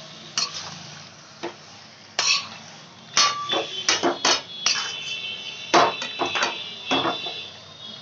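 A metal spoon scraping and knocking against a steel kadai as marinated raw meat is stirred in hot oil, over a faint sizzle. The irregular strokes start about two seconds in and come several a second.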